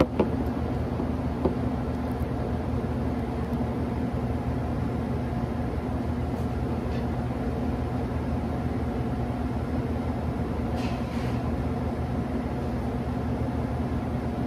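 Steady hum of commercial kitchen machinery: a constant drone with several held tones. Two light knocks come in the first couple of seconds.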